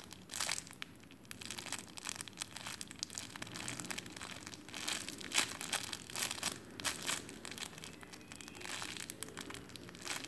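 Clear plastic bag crinkling and crackling irregularly as the slow-rising foam squishy toy inside it is squeezed and handled.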